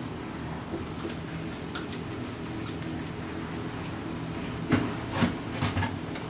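Sugar syrup running from a barrel mixer's spigot into a plastic gallon jug as a steady low-pitched sound. A few sharp plastic knocks come near the end.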